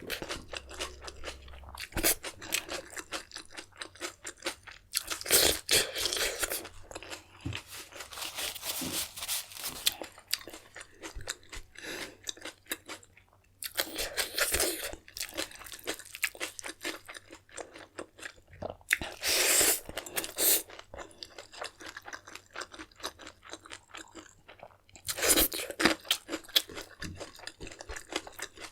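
Close-miked eating: steady chewing and mouth clicks, with louder crunching bites in bursts of a second or two, five times over.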